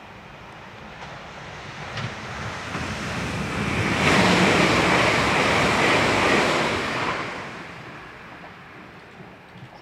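NordWestBahn class ET 440 electric multiple unit (Alstom Coradia Continental) passing close by: a rushing of wheels on rail that builds over the first few seconds, is loudest for about three seconds, then fades away.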